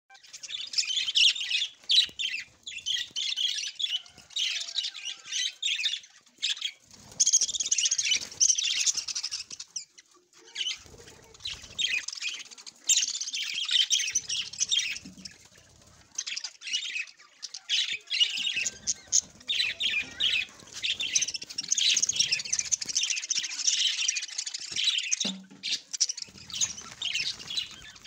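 A flock of budgerigars chattering: rapid high chirps and warbles, with a couple of short lulls.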